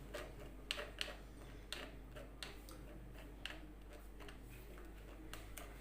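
Faint, irregular light clicks and taps of kitchen utensils against a pot or glass while a hot drink is being strained.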